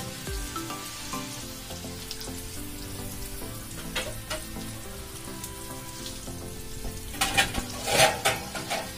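Stuffed bitter gourds shallow-frying in oil in a kadhai over a low flame: a steady, gentle sizzle. About seven seconds in come several louder sharp clatters.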